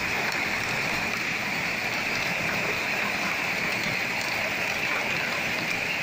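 Heavy rain falling steadily, an even, unbroken wash of drops that never lets up.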